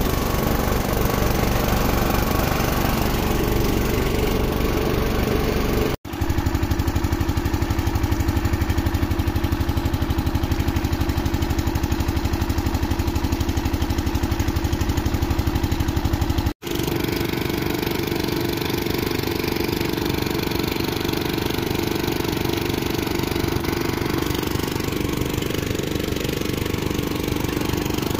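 Eicher tractor's diesel engine running steadily at a constant speed, powering the pump that draws pond water up a hose into its water tank. The sound breaks off for an instant twice.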